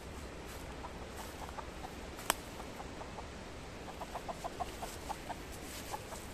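A domestic hen clucking in short, soft notes, with a quicker run of about seven clucks around four seconds in. A single sharp click sounds a little after two seconds.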